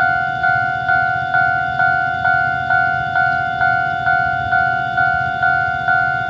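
Railroad level crossing warning bell ringing steadily, about two strikes a second, each strike a clear two-toned ring that fades before the next.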